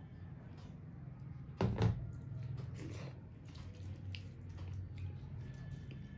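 Mung dal poured from a small steel bowl onto rice, then rice and dal squished together by hand on a steel plate, with small wet clicks. A short louder scrape or clink about one and a half seconds in, over a steady low hum.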